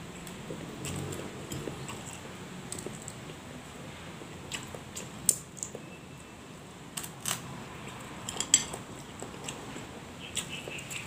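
Eating at a table: a handful of sharp clinks of cutlery against a plate, the loudest about five, seven and eight and a half seconds in, with softer handling sounds between.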